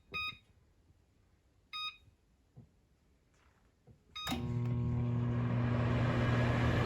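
Microwave oven keypad beeping a few times as the cooking time is entered. About four seconds in the oven starts running, with a steady electrical hum and fan noise.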